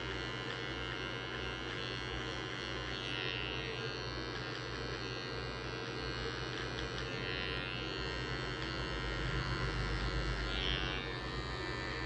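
Cordless hair trimmer (barber's finishing trimmer) buzzing steadily as it cuts hair close to the skin at the nape and around the ear.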